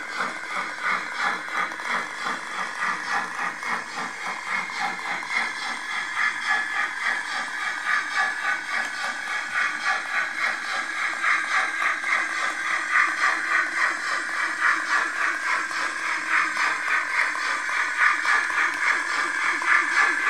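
Roco H0 model of a class 85 steam tank locomotive running under its sound decoder, a steady rhythm of steam chuffs from the model's small loudspeaker, with light rattle. It grows louder as the engine draws closer.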